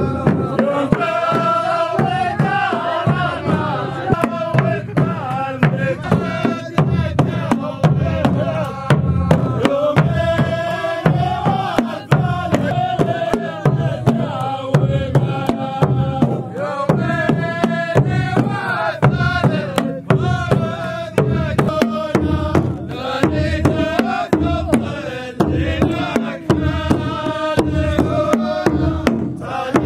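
Men's voices chanting a melody in unison over steady beats on large frame drums: the music of the Saudi sword dance (ardah).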